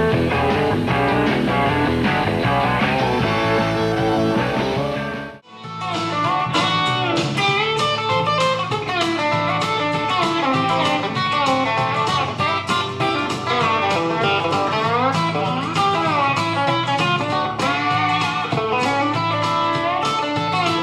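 Live country band music with electric guitar lead, which cuts off about five seconds in. After a brief gap, a twangy Telecaster-style electric guitar plays in chicken-picking (hybrid picking) style: quick plucked notes with string bends.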